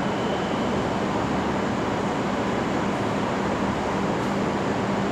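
Steady mechanical hum and rushing noise of a railway station platform, with a constant low tone and no change in pitch or level.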